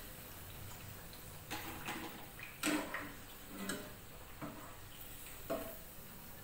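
Metal slotted spoon clinking and tapping against a kadhai and a plastic draining plate as fried potato bhajis are lifted out of the oil: a string of sharp, irregular clinks, the loudest a little under three seconds in.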